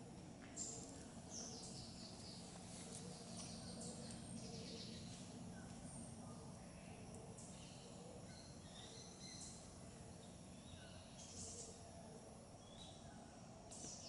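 Faint, scattered short high-pitched chirps and calls of small birds over a low steady hum.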